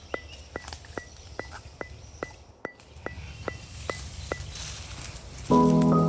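Steady, even ticking, about two and a half ticks a second, which stops a little after four seconds. About five and a half seconds in, music with sustained notes comes in loudly.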